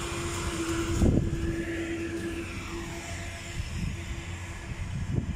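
Forklift engine running with a steady low drone and a held tone that fades out about three seconds in. A heavy thump comes about a second in, the loudest sound, and another near the end.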